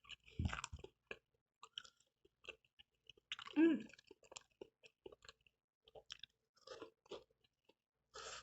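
Someone biting into and chewing a freshly fried chicken sambosa, its thin wrapper crunching in many small irregular crackles. A briefer, louder sound with a falling pitch comes about three and a half seconds in.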